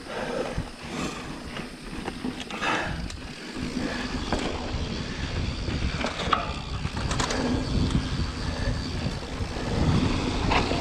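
Mountain bike riding along a dirt trail: tyre noise and rattling from the bike, with scattered sharp clicks and knocks over a steady low rumble of wind on the microphone.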